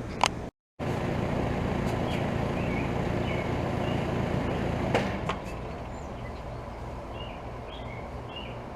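A 2015 Trane XR14 2.5-ton central air-conditioner condenser running with a steady hum. About five seconds in it shuts down with a click, and the sound drops to a quieter hum as it winds down. Faint bird chirps are heard.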